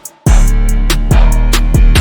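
Background music with a steady drum beat, bass and guitar; it drops out briefly at the start and comes straight back in.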